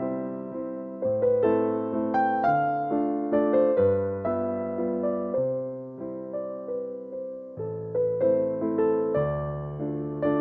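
Background music: a gentle electric piano melody over sustained chords.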